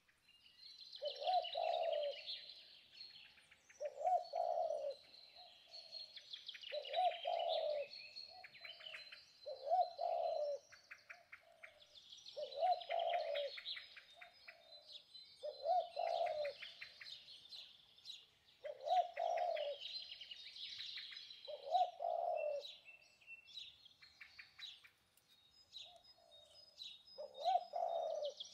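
Birds calling: a short, low call repeated about every three seconds, over continual high chirping and twittering from other birds.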